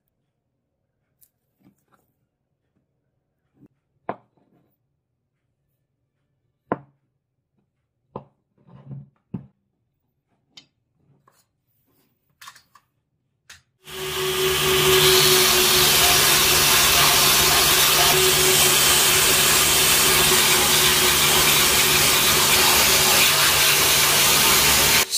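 A few scattered light knocks and taps of wooden handle pieces and steel blade being handled, then about halfway through a belt sander comes in loud and runs steadily, grinding wooden handle blocks pressed against its belt.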